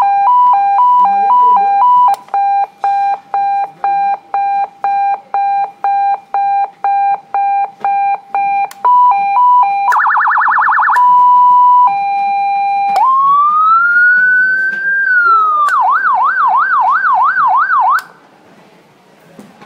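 Landun electronic siren running through its tones: a two-note hi-lo alternation, then a run of quick on-off beeps at about two or three a second, a fast trill and a steady tone, then a rising whine and a fast yelp that cuts off suddenly near the end.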